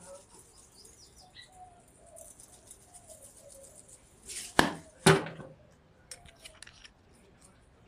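Seasoning shaken from a plastic flip-top shaker jar over cauliflower in a stainless steel pan, a faint hiss of falling granules. A little past halfway come two sharp clicks about half a second apart, then a few lighter ticks.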